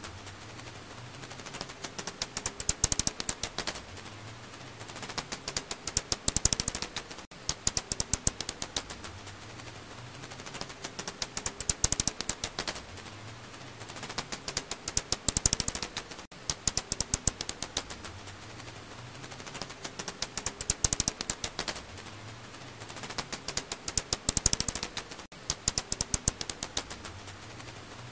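Echolocation calls of an Alashanian pipistrelle (Hypsugo alaschanicus), heard as rapid trains of dry clicks. The clicks swell into dense, louder bursts about every four to five seconds, then thin out again.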